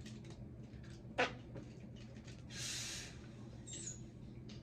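A short sharp click about a second in, then a breathy blow lasting about half a second: someone blowing through a straw stuck into slime to try to make a bubble.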